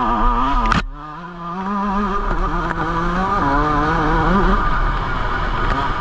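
Yamaha YZ125 two-stroke single-cylinder dirt bike engine being ridden, revs rising and falling with the throttle. A sharp knock comes just under a second in, the engine briefly eases off, then picks up again.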